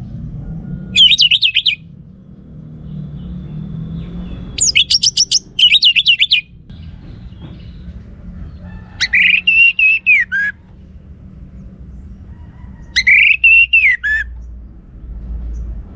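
Orange-headed thrush singing four loud, separate phrases of rapid repeated whistled notes with pauses between them. The last two phrases are lower and fall off at the end. A low rumble of background noise runs underneath.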